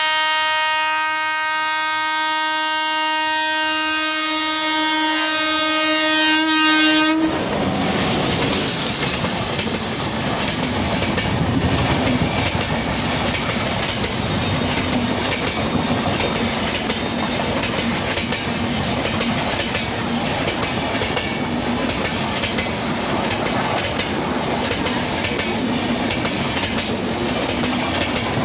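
A WAP-7 electric locomotive's horn sounds one long, steady blast that cuts off about seven seconds in. It is followed by the loud, continuous rush and clickety-clack of the speeding passenger train's coaches passing close by.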